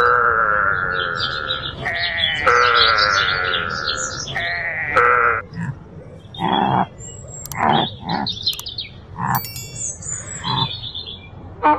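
Animal bleating: long, drawn-out calls that step between two pitches for about five seconds, then a run of short bleats about a second apart, with high chirps above them.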